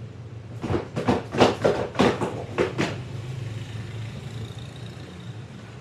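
A rapid run of about eight short, loud vocal bursts, from about half a second in to about three seconds in, over a steady low hum.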